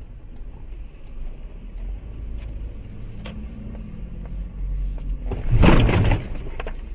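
Steady low engine and road rumble of a car, as picked up by its dashcam. About five and a half seconds in, a loud, sudden noise cuts in and lasts under a second, then the rumble carries on.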